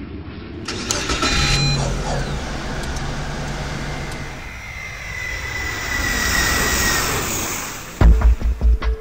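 Engine noise as a sound effect, with a whine that slowly falls in pitch and swells to a peak near the end. About a second before the end, a music beat with heavy low thumps cuts in.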